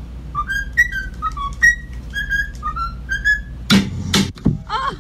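Pet cockatiel whistling a tune in a run of short, high notes. About three and a half seconds in, two loud noisy bursts follow.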